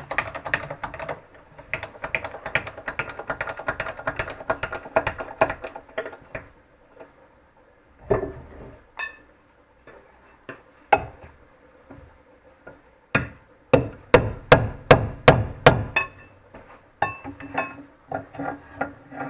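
Hammer blows on metal, most likely knocking the new bolt through the rear beam's silent block and bracket. A fast run of light ringing taps gives way to separate heavy blows, with a quick series of about seven hard strikes near the end.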